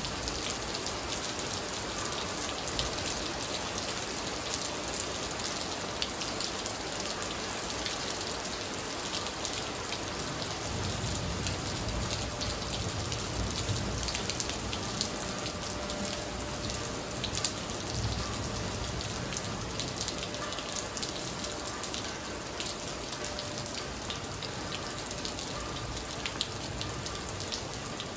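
Steady heavy rain falling on a wet tiled floor and garden plants, with many close drops splashing on the tiles.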